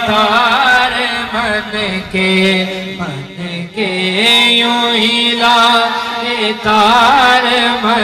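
A man singing a naat into a microphone, drawing out long held notes with wavering ornamented runs rather than clear words, with a short pause about three seconds in.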